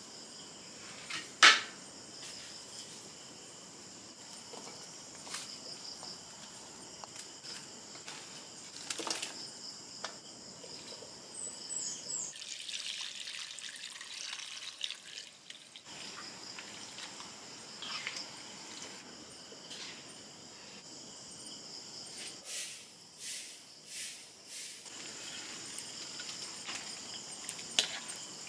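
Steady high-pitched insect chorus, crickets, with scattered sharp knocks and clicks of handling, the loudest about a second and a half in and a cluster near the end. About halfway there are a few seconds of hiss.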